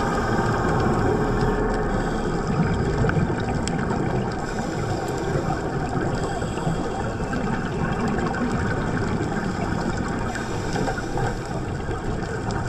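Steady, muffled rush of underwater noise picked up by a camera on a reef dive, with no clear breaths or bubble bursts.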